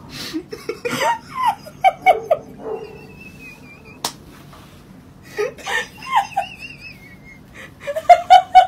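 A person laughing in short bursts: a run of chuckles about a second in, more around the middle, and a quick string of laughs near the end. A single sharp click about four seconds in.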